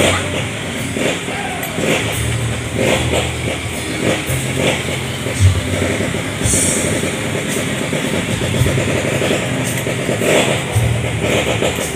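An engine, of the kind PANN files under vehicle or motorcycle, runs with a low hum that comes and goes. Against it come the soft, repeated cuts of a knife slicing through a kimbap roll on a cutting board.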